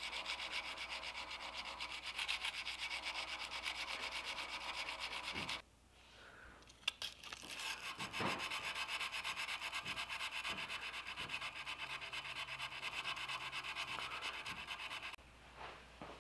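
Wet/dry sandpaper on a hand sanding block rubbed in rapid back-and-forth strokes along a san mai steel knife blade. The strokes stop about five and a half seconds in, with a single click during the pause, pick up again about two seconds later, and stop about fifteen seconds in.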